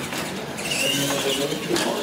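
Radio-controlled monster truck running flat out across the track, its motors and drivetrain giving a high wavering whine over the noise of its tyres.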